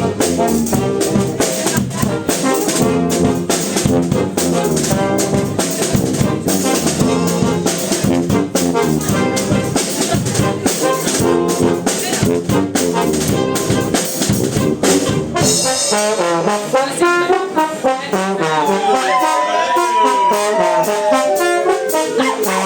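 Brass fanfare band playing live: trombones and trumpets over a busy drum beat. About sixteen seconds in the drums stop and the horns carry on alone with sliding, falling phrases.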